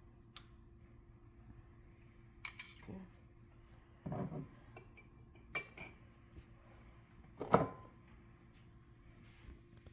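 A metal spoon and a small bowl clinking and knocking against the wire rack of a metal sheet pan while butter is spooned onto baked tilapia. There are a handful of separate clinks about every one to two seconds, with the loudest knock near the end.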